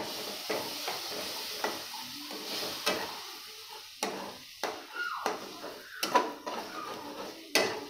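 Spice masala sizzling and steaming in a hot aluminium kadai after a splash of water, while a metal spatula scrapes and clinks against the pan as it is stirred. The sizzle is strongest in the first few seconds and then eases.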